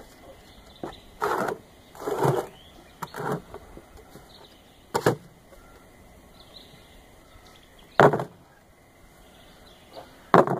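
Short lengths of 4-inch PVC pipe knocking and scraping against bricks and the sides of a plastic bucket as they are set in place: about six separate clunks and scrapes, the loudest about eight seconds in and just before the end.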